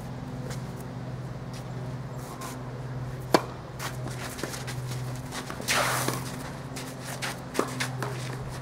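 Tennis ball struck by rackets during a doubles rally: one sharp pop about three and a half seconds in, with lighter hits and bounces scattered through, and a brief scrape around six seconds in. A steady low hum runs underneath.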